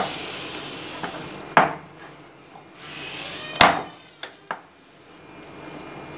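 Hands kneading and pressing soft, risen maida dough in a glass bowl, a rustling squish broken by several sharp knocks against the bowl, the loudest about three and a half seconds in.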